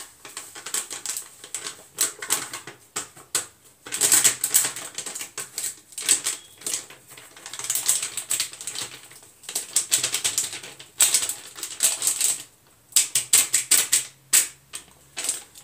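Foil-lined packet of gulab jamun mix crinkling and crackling in irregular bursts as it is shaken, squeezed and tapped to empty the powder onto a steel plate.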